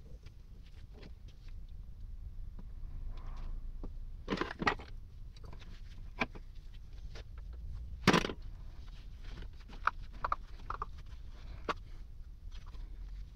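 Scattered metal clinks and knocks from hand tools worked on the rusty rotor shaft of an electric water pump motor, over a low background hum. There is a short cluster of knocks about four and a half seconds in and a single sharp knock, the loudest, about eight seconds in.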